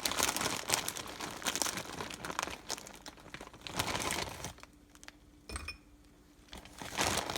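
Crinkling plastic packaging of a tropical fruit blend being handled, dense for the first few seconds, then a quieter pause with a soft thump about halfway through, and crinkling again near the end.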